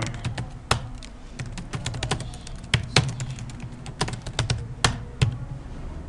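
Typing on a computer keyboard: a quick, uneven run of key clicks, with a few louder strokes among them.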